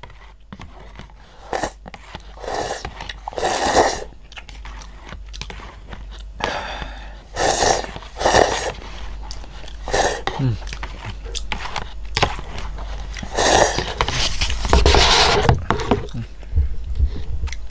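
A person eating instant noodles with chopsticks from a paper bowl, close to the microphone: several long slurps, each about a second, with chewing in between.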